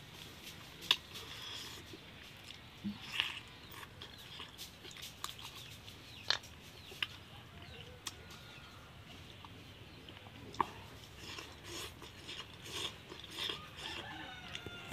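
Close eating sounds of chewing and lip-smacking, with sharp clicks every second or two, while chickens cluck in the background.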